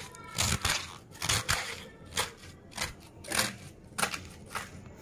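Kitchen knife slicing through a cabbage onto a wooden chopping board, shredding it in crisp, even strokes at about two a second.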